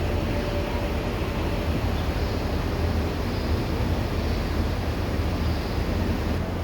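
The last hum of a church bell dying away in the first second or two, under a steady low rumble.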